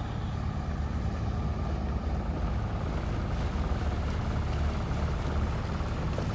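Yacht's inboard diesel engine running steadily at low revs under motor: a steady low hum.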